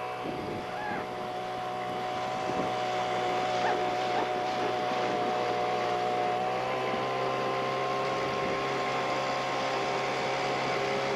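Small boat's gasoline outboard motor running at a steady speed, a constant hum over a steady hiss.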